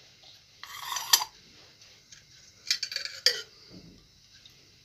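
Metal oil container being handled to pour cooking oil into a pan: a short scrape about a second in, then a few sharp metal clinks about three seconds in.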